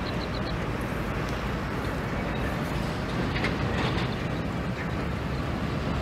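Steady, low outdoor rumble with no clear source, such as wind or distant traffic, with a few faint high chirps just after the start.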